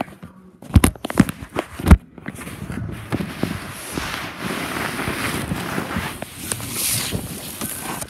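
Phone handling noise: three or four sharp knocks in the first two seconds, then steady rustling and rubbing close to the microphone.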